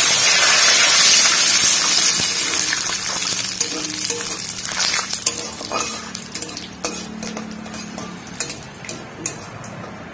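Cumin seeds and a bay leaf sizzling in hot mustard oil, loud at first and fading over the seconds. A utensil clinks and scrapes against the pan now and then as it is stirred.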